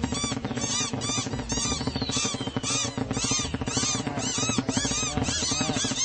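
Cartoon bird voices: many short, high chirps and squeaks chattering over one another, several a second. Under them runs a steady music score.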